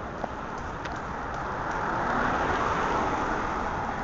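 City street traffic noise, with a vehicle passing close by: the noise swells through the middle and fades toward the end. A single short click comes just after the start.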